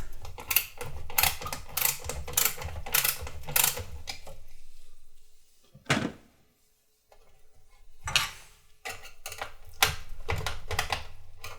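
Ratcheting screwdriver clicking in quick, uneven runs, about two or three clicks a second, as a screw inside a PC case is turned. It falls quiet for a few seconds with a single knock, then clicks a few more times about eight seconds in.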